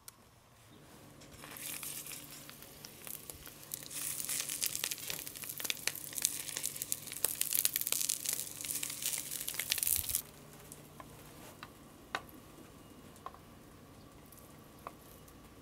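Pork sausage links sizzling and crackling as they fry in oil in a cast-iron skillet, building over the first few seconds and cutting off suddenly about ten seconds in. After that come a few faint clicks of a knife on a wooden cutting board.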